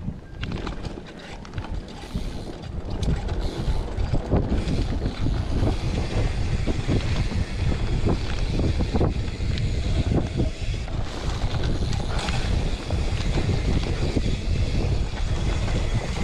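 Mountain bike rattling and knocking over a bumpy dirt forest trail, with wind rumbling on the microphone. It gets louder just after the start and stays at that level, with frequent sharp knocks from the bumps.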